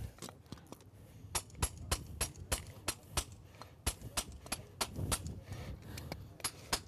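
Farrier's hammer tapping horseshoe nails into a horse's hoof wall: quick, sharp metallic strikes about four a second, starting a little over a second in.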